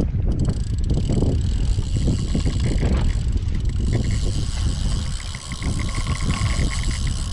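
Wind rumbling on the microphone over a boat engine running, while a spinning reel is wound against a heavy fish, with fast light ticking for a couple of seconds in the middle.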